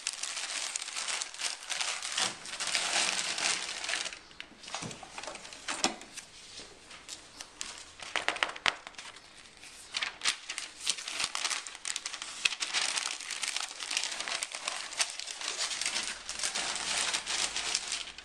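Sheets of packing paper rustling and crinkling as they are folded around picture frames. The crinkling comes in bursts, with a quieter stretch of scattered clicks in the middle.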